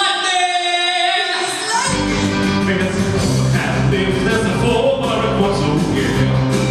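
Live rock-and-roll song: a long held sung note with no accompaniment, then the band comes in about two seconds in with bass and drums, and the singing carries on over it.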